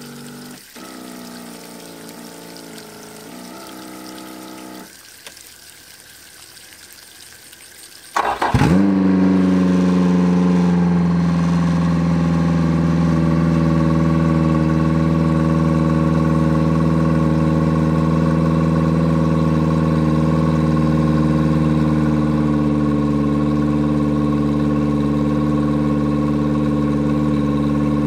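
An electric whine, typical of the power trim lowering the outboard, runs for the first few seconds. About eight seconds in, a Yamaha 90 hp four-stroke outboard is cranked and catches almost at once, then idles steadily on a garden-hose water supply for the rest of the time.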